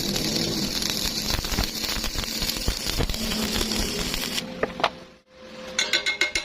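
Electric welding arc crackling steadily, then cutting off about four and a half seconds in. A couple of clicks follow, and near the end music with a ticking beat comes in.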